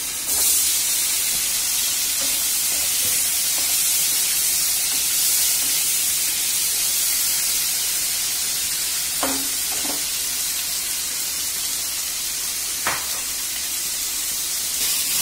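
Marinated paneer cubes tipped into hot oil in a kadai, sizzling with a steady high hiss that starts as they hit the oil. A wooden spatula stirring them knocks against the pan a few times.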